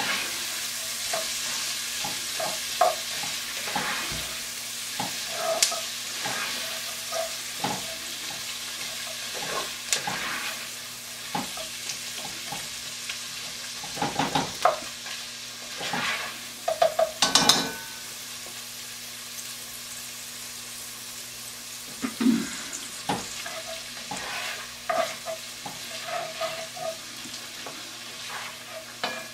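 Sliced onion and garlic sizzling in a cast-iron Dutch oven over medium heat, stirred with a utensil that scrapes and knocks against the pot at irregular moments, most busily in the middle stretch.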